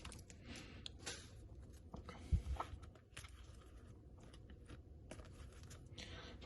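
Faint handling of trading cards: soft slides and clicks as cards are flipped through by hand, with one sharper tap about two and a half seconds in.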